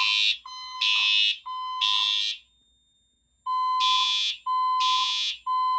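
Siemens UMHU-MCS fire alarm horn strobe sounding the code 3 (temporal-three) evacuation pattern: three blasts, a pause about two and a half seconds in, then three more. Each blast carries a steady tone under a harsh, buzzy horn.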